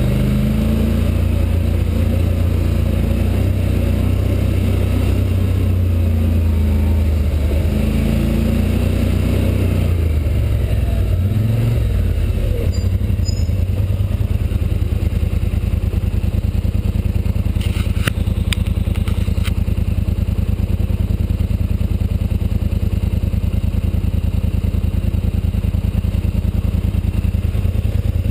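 Polaris Sportsman 850 XP ATV's parallel-twin engine running under throttle on a trail ride, its pitch rising and falling over the first ten seconds, dropping about twelve seconds in, then holding steady. A few sharp clicks come about eighteen to nineteen seconds in.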